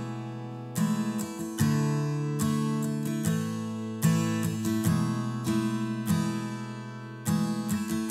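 Background music: an acoustic guitar strumming chords in a steady rhythm, a fresh strum about every 0.8 seconds, each ringing out before the next.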